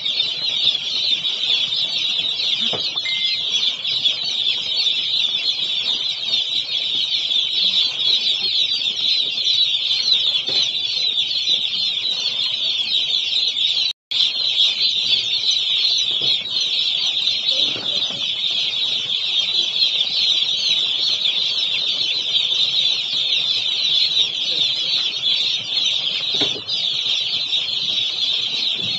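Dense, continuous high-pitched peeping of about a thousand day-old broiler chicks in a brooder, cutting out for an instant about halfway through.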